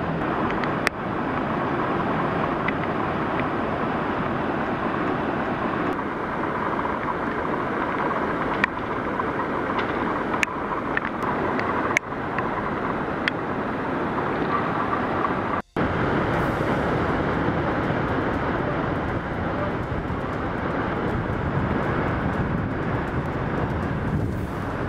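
Steady roar of the Iguazu Falls and the rushing river below them, cut off suddenly for a split second about two-thirds of the way through.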